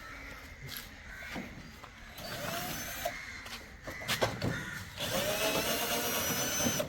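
Cordless power drill-driver running in two short bursts, the second longer, as it backs out screws from the washing machine's panels, with a few clicks and knocks of parts being handled.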